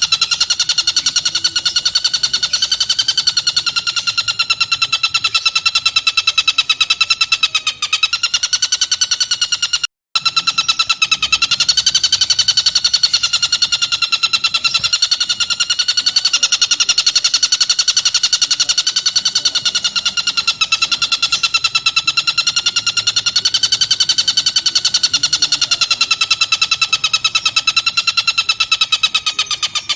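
Tengkek buto kingfisher giving a long, unbroken, very rapid chattering trill, its pitch wavering slightly up and down. The sound cuts out for a moment about ten seconds in.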